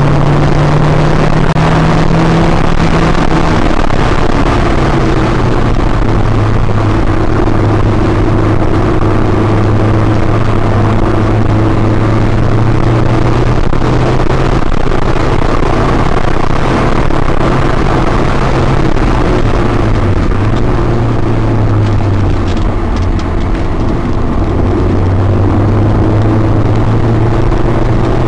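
Honda S2000's four-cylinder engine pulling hard on track, heard from inside the cabin over road and wind noise. The engine note drops about four seconds in, dips and climbs again a little past the middle, and rises near the end.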